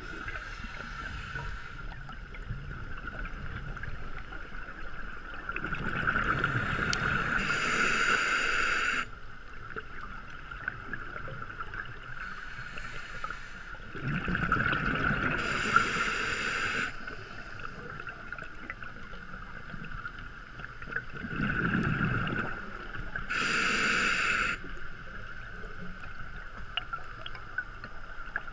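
A scuba regulator breathing underwater, heard through a camera housing: over a steady hiss, exhaled bubbles rush out in louder gurgling surges three times, several seconds apart.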